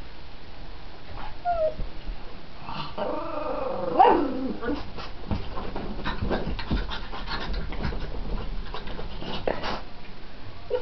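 A pug and a cat fighting: a burst of pitched animal cries and growling about three seconds in, loudest about four seconds in, then a run of quick, sharp scuffling sounds for several seconds.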